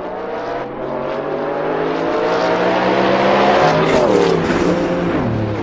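A motor vehicle's engine running steadily, its pitch creeping up for a few seconds and then falling away over the last second and a half.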